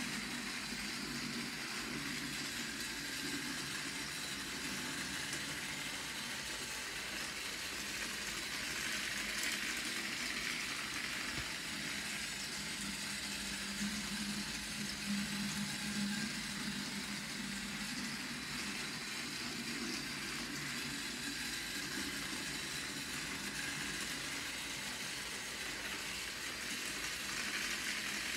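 Battery-powered TrackMaster toy train engine running steadily, its small motor and gearbox whirring as it pulls a train of trucks around plastic track. The hum swells a little about halfway through.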